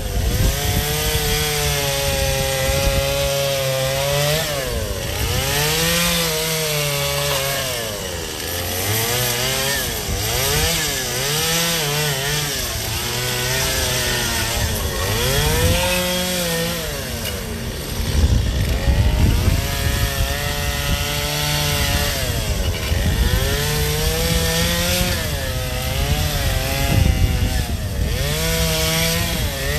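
Gas chainsaw cutting into a block of ice, its engine pitch rising and falling every second or two as the throttle is worked, with a louder, rougher stretch a little past the middle.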